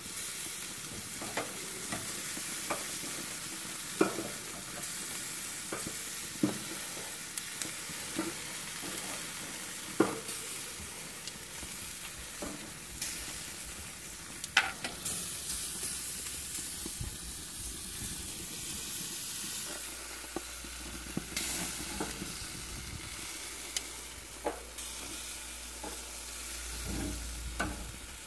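Sausages sizzling steadily on a barbecue grill grate, with sharp metal clicks now and then as tongs grip and turn them against the grate.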